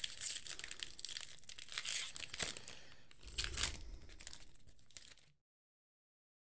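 Clear plastic wrapper of a trading card pack being torn open and crinkled, crackling in uneven spurts, then stopping abruptly about five seconds in.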